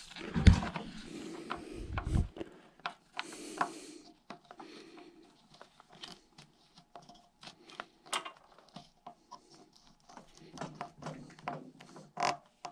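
Hand handling of a Teflon-taped nylon hose barb being threaded into a drain fitting: scattered small clicks, scrapes and taps of plastic parts, with two dull thumps in the first two seconds or so.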